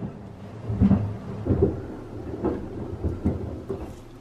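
Homemade oat milk poured from a glass bottle into a steel pot of oats, coming out in a series of short, uneven low glugs.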